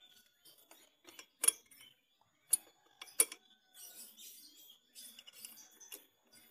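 Hands handling tools and parts at a scooter's opened CVT: three sharp clicks about one and a half, two and a half and three seconds in, followed by small scattered ticks and rustling.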